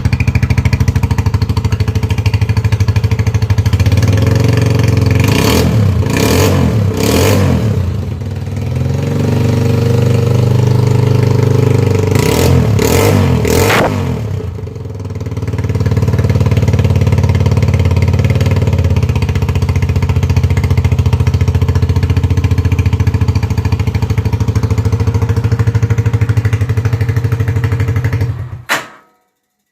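Zanella Patagonian Eagle 150 motorcycle engine running through leaking, broken exhaust mufflers with a small hole drilled in each. It idles steadily, is revved in quick blips twice, about five and twelve seconds in, and cuts off near the end.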